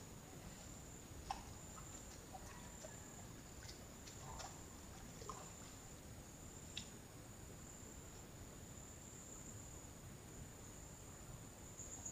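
Faint, steady high-pitched drone of insects, with a few soft clicks scattered through it.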